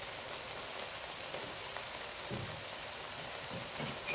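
Kofta meatballs and potato cubes in tomato-paste sauce sizzling steadily in a pot on the stove, a constant crackling hiss.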